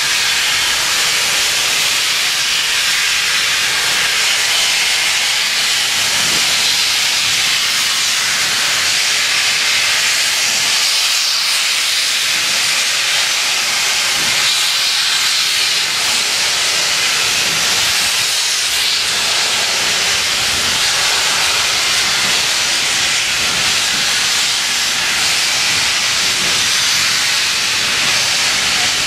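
Steady, loud hiss of steam from a steam locomotive while a rake of coaches is moved slowly along the track.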